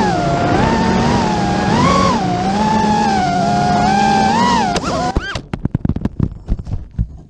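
Racing quadcopter's Xnova 2204 2300kv brushless motors whining, the pitch rising and falling with throttle. About five seconds in, with the drone down in the grass, the whine breaks into a run of short stuttering blips and then stops.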